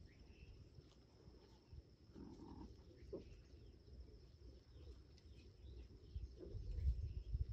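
Faint outdoor ambience: a thin steady high-pitched whine, with low rumbling that grows louder near the end.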